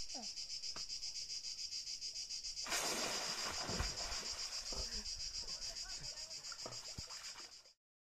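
Insects shrilling in a high, fast and evenly pulsing chorus. About three seconds in, a rushing noise joins it. The sound cuts off suddenly near the end.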